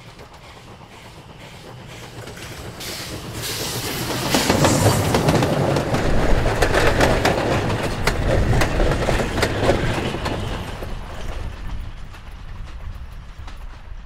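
Steam locomotive H-MNOS 204 hauling vintage coaches passes close by. Its sound grows as it approaches and is loudest from about four to ten seconds in, when the wheels clatter over the rail joints, then fades as the train moves away.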